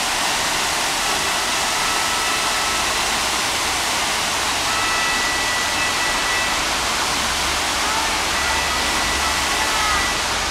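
Water rushing and splashing in a canal lock, a steady, unbroken sound of falling water.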